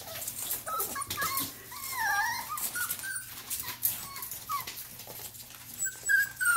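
A litter of young Norwegian Buhund puppies whimpering and squeaking: many short, wavering high whines, one after another, over light scratching and rustling of paws on newspaper.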